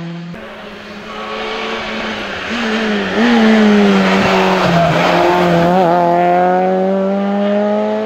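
Citroën Saxo rally car's engine at high revs as it approaches and passes. It gets louder about three seconds in, its pitch wobbles and dips briefly as the throttle is worked, and then it climbs steadily.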